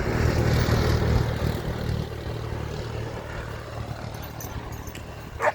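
A motor vehicle driving past, its engine and tyre noise loudest in the first second or two, then fading away as it goes.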